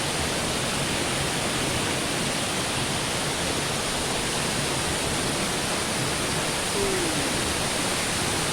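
Mountain waterfall pouring, a steady, unbroken rush of falling water.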